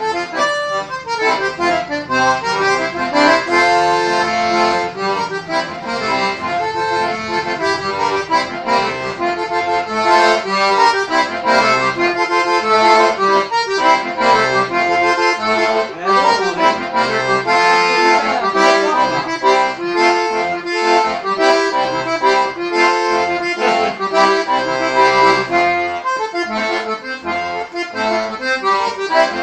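Hering eight-bass diatonic button accordion (sanfona de oito baixos) playing a traditional tune, with a melody over bass and chords on the bellows.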